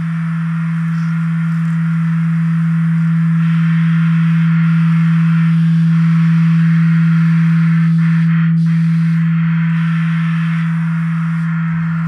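Free-improvised electroacoustic drone from live electronics: a steady, loud low pure tone with a faint tone an octave above it, under a band of high hiss that shifts in texture a few times. The whole swells gently toward the middle and eases off near the end.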